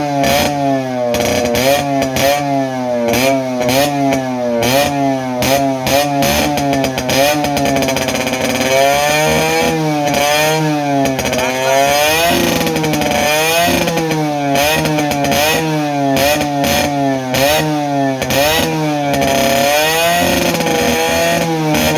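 Yamaha RX100's two-stroke single-cylinder engine revved over and over in quick throttle blips, its pitch rising and falling about twice a second, with a few longer, slower revs partway through.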